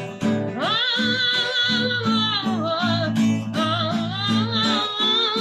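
Live song with acoustic guitar playing under a long held melody line that wavers in pitch, between sung lines.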